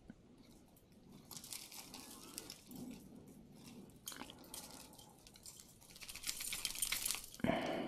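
Crinkling and rustling as hands handle costume jewelry, in two crackly stretches, the second louder. A brief louder sound comes near the end.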